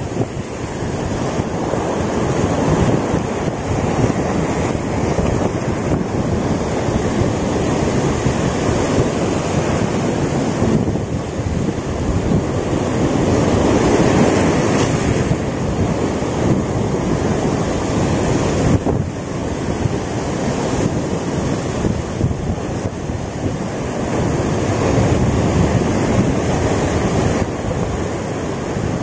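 Sea surf washing and breaking along the shore, with wind buffeting the microphone. The noise swells louder about halfway through and again near the end.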